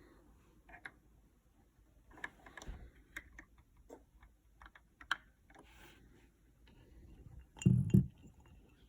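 Keys being typed on a GK61 mechanical keyboard with Gateron Optical Brown switches: scattered, irregular keystroke clicks, with two much louder, heavier strokes near the end.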